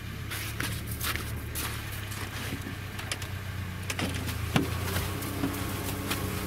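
A vehicle engine running steadily at low revs, with scattered clicks and knocks over it; its note changes about five seconds in.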